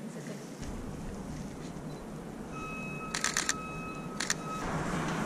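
Camera shutter firing in a quick burst of about five frames, then two more a second later, over street background noise. A steady high tone is heard for about two seconds around the shots.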